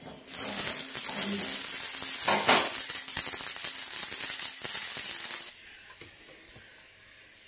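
Small dark seeds dry-roasting in a nonstick frying pan, crackling and rattling against the pan as they are stirred and the pan is shaken. The crackling cuts off suddenly after about five and a half seconds.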